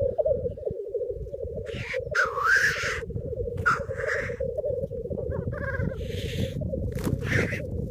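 Male black grouse displaying at a lek: a continuous bubbling, cooing chorus of rookooing, broken several times by loud, harsh hissing 'sneeze' calls.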